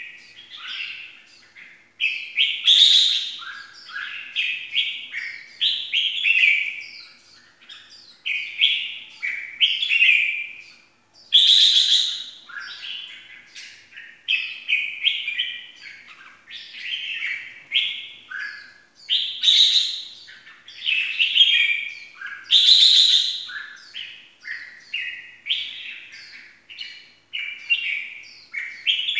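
Red-whiskered bulbul singing, a continuous chattering run of short, quick whistled phrases, with a few louder, sharper notes among them.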